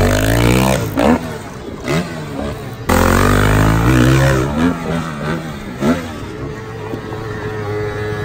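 Dirt bike engines revving and accelerating, their pitch rising and falling with the throttle. There are two loud throttle bursts, one at the start and another about three seconds in, with quieter running in between and afterwards.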